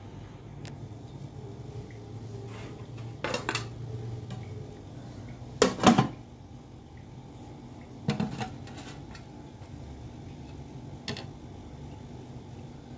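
Metal kitchenware clattering: an aluminium plate and a slotted metal spatula knocking and scraping, four separate clatters with the loudest about halfway through, over a steady low hum.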